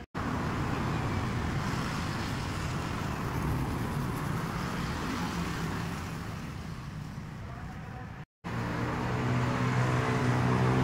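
Steady rushing noise of road traffic, cut off briefly about eight seconds in and followed by a steady low hum that grows louder.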